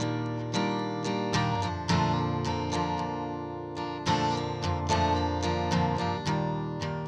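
Background music: acoustic guitar playing, its notes or chords plucked about twice a second and ringing out between strikes.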